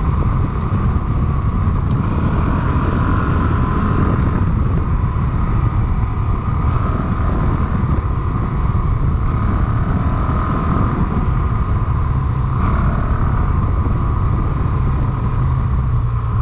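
Honda CRF450RL dirt bike's single-cylinder four-stroke engine running steadily as the bike is ridden, loud throughout.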